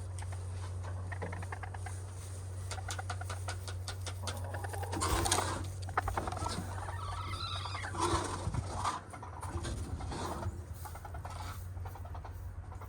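Hens clucking softly amid scratching and rustling, with a scatter of small clicks and a louder rustle about halfway through.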